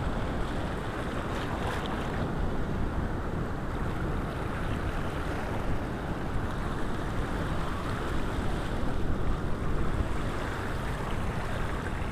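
Wind buffeting the microphone in a steady low rumble, over small waves washing and splashing against a rocky shore.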